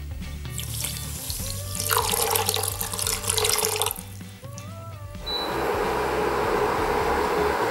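Water poured from a glass jug into a stainless steel pot of sugar, splashing for about two seconds; from about five seconds in a steady hiss follows.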